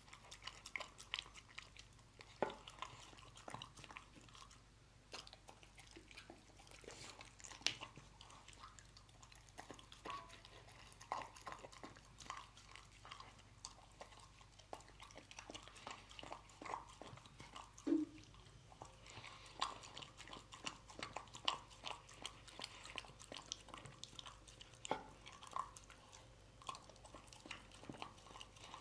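A dog eating chunks of canned wet dog food from a bowl: irregular wet chewing and licking, made up of many short clicks.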